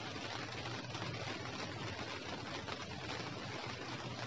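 Steady light rain: an even, unbroken hiss of fine drops.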